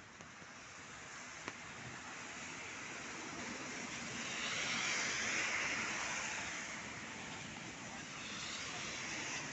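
Steady rain hiss with a car passing on a wet road: the tyre hiss swells to its loudest about halfway through, then fades.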